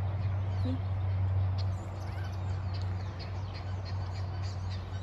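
A steady low hum with faint, scattered bird chirps over it.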